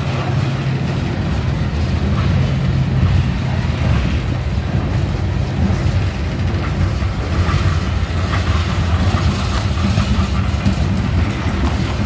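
Diesel freight locomotive passing close by: its engine runs with a steady low drone, mixed with the rolling noise of steel wheels on the rails.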